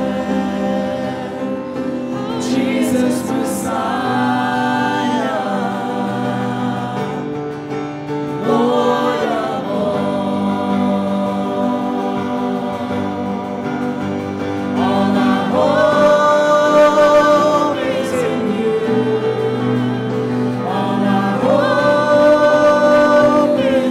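A vocal trio of two men and a woman singing a gospel song into microphones, holding long notes over steady instrumental backing.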